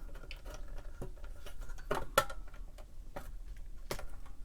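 Light, irregular clicks and taps from small hand tools working parts on a circuit board, with sharper clicks about two seconds in and again near the end.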